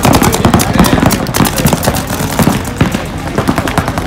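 Paintball markers firing in rapid strings of many shots a second, with the fire thinning out about halfway.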